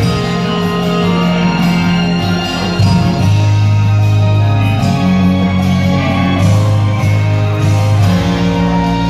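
Live band music: held keyboard chords over a steady bass line, with guitar and drums.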